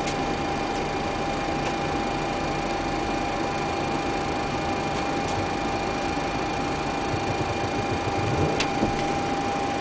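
Steady cockpit noise of a Boeing 737-400 on the ground: a constant hum and rush of air with a steady high whine, broken by a few faint clicks, the clearest near the end.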